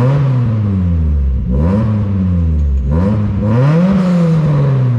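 A 1994–1997 Mazda Miata's 1.8-litre four-cylinder engine running and being blipped, its revs rising and falling about four times. This is the engine's first run on a newly installed in-tank fuel pump.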